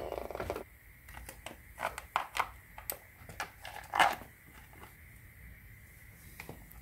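A ratchet wrench clicking briefly on the motorcycle's front sprocket nut, then scattered metallic clicks and knocks of parts and bolts being handled as the sprocket cover is refitted. The loudest knock comes about four seconds in.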